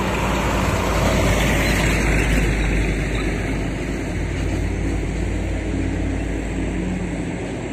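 Hino diesel dump truck driving past on a dirt road: engine running and tyres rolling on dirt. It is loudest in the first couple of seconds and fades slowly as the truck moves away.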